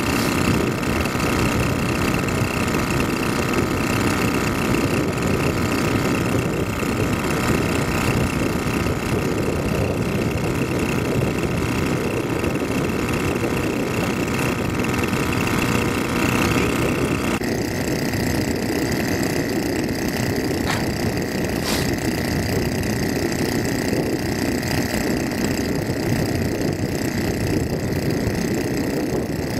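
Riding rice transplanter's engine running steadily as the machine plants its way across a flooded paddy. The tone of the noise shifts abruptly a little over halfway through.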